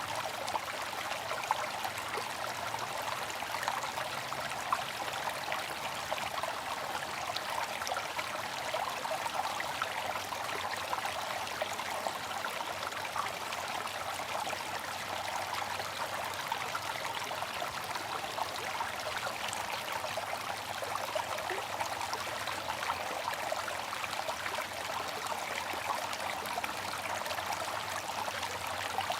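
Bamboo water fountain trickling and splashing steadily: an even rush of running water with a fine patter of droplets.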